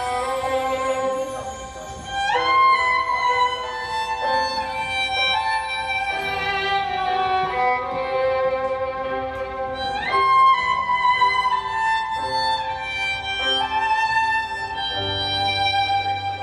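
Violin playing a slow melody of long held notes, sliding up into high notes about two seconds in and again about ten seconds in.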